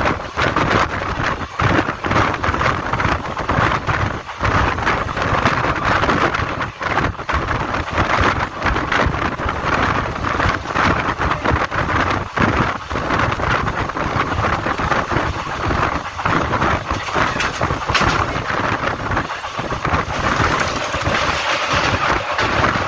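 Passenger train running at speed, with wind buffeting the microphone over the rolling rumble of the wheels on the rails.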